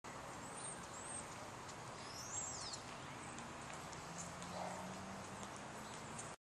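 Faint outdoor ambience: a steady hiss with a few high bird chirps, the clearest a quick rising-and-falling whistle about two and a half seconds in, and a low hum in the second half.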